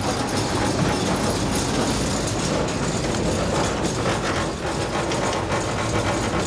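A 15-inch-gauge miniature train's cars rolling along the track, a steady running noise heard from aboard a passenger car.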